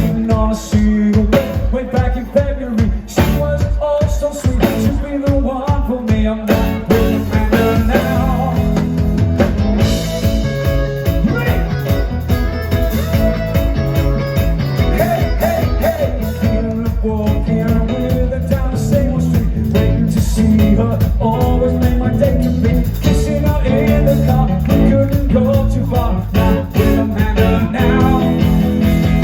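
Rock band playing a song with singing and a steady beat.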